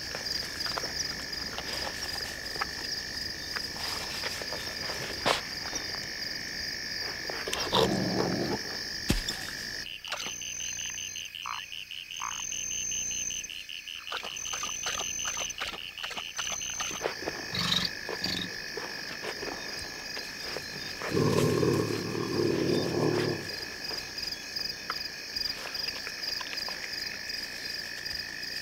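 A night insect chorus of steady, high trilling, with two rough animal growls: a short one about a quarter of the way in and a longer, louder one about three-quarters through. In the middle stretch the trilling gives way to a faster pulsing insect or frog call and scattered clicks.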